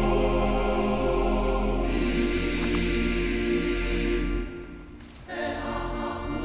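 Background music of sustained choir-like chords, held steady, with a short dip about four and a half seconds in before a new chord comes in.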